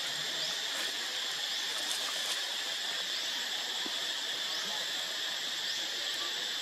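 Steady insect chorus in foliage, an even hissing drone, with faint short rising chirps repeating about once a second.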